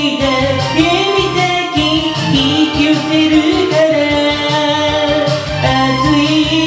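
A voice singing a Japanese pop song over a backing track with bass and a steady beat, the held notes wavering.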